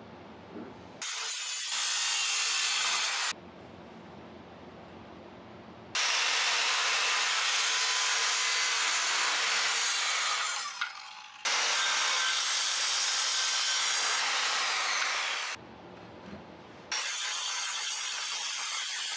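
Evolution R185 circular saw with its multi-material blade running on its track, cutting through a wooden board and steel tubing laid along it. There are four loud stretches of cutting, each a few seconds long, separated by quieter pauses.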